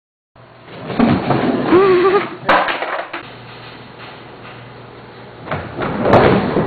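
Skateboard wheels rolling with sharp clacks of the board, one about two and a half seconds in and another near the end. A person's voice calls out briefly about two seconds in.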